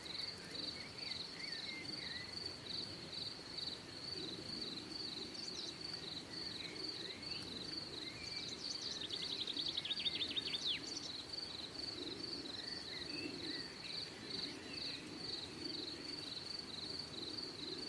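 An insect, likely a cricket, chirping steadily in an even high-pitched pulse, about two to three chirps a second. Faint bird calls sound here and there, and a quick trill of rising notes comes about nine to eleven seconds in.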